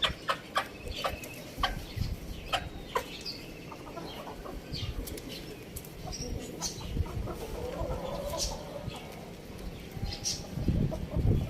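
Chickens clucking, with a run of sharp taps and scuffles in the first few seconds and a drawn-out call a little past the middle; no crowing.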